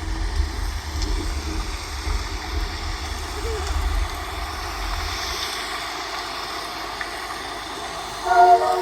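Fireworks display: a low rumble from shell bursts dies away about halfway through, with a few faint pops. Music starts near the end.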